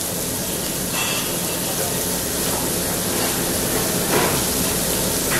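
Thick-cut pork sizzling on a tabletop barbecue grill: a steady hiss over a low hum. Twice there is a light click as tongs and scissors cut the meat.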